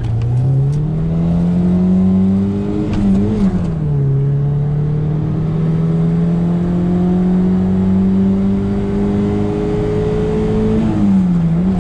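Naturally aspirated 1.4-litre four-cylinder engine of a Fiat Uno 70S accelerating hard through the gears, heard from inside the cabin. Its note climbs, dips at an upshift about three and a half seconds in, then climbs slowly again until another upshift near the end.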